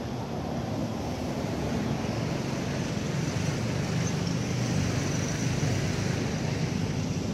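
Steady low rumble of background noise, swelling a little after about two seconds and then holding.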